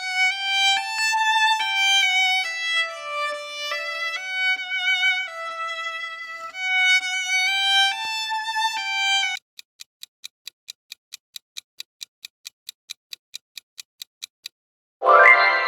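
Solo violin playing a slow melody of held notes with vibrato, cutting off about nine seconds in. A steady ticking, about four ticks a second, follows for some five seconds like a quiz countdown timer, and a bright ringing chime starts near the end.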